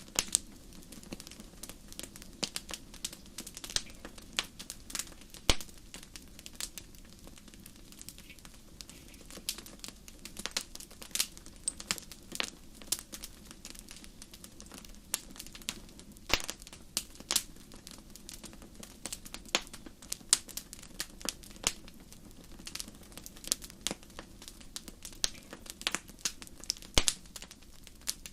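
Wood fire in a fireplace crackling, with frequent sharp, irregular pops over a low steady rumble of the flames.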